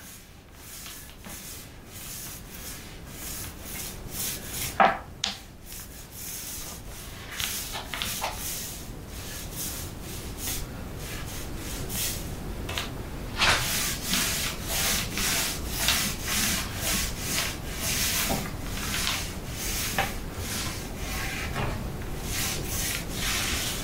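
Mini paint roller rolling wet paint across the wooden top of a bedroom unit: a rubbing, slightly sticky swish with each back-and-forth stroke, the strokes coming faster and thicker in the second half, with one brief sharper sound about five seconds in.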